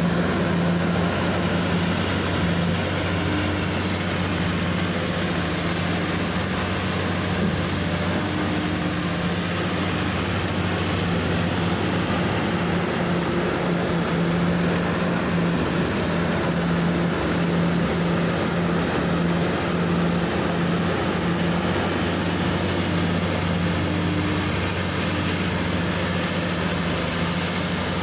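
Heavy diesel engine of mining earthmoving machinery running steadily at a constant speed: a loud, even drone with a low hum that neither revs nor dies down.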